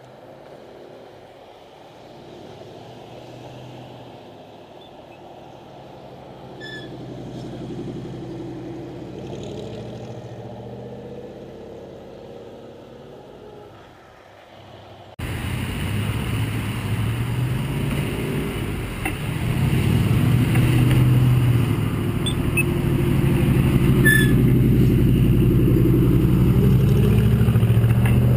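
Road traffic running past a moving bicycle: engines and tyre noise of passing cars, rising and falling in pitch as they go by. The sound jumps suddenly louder about halfway through and stays loud.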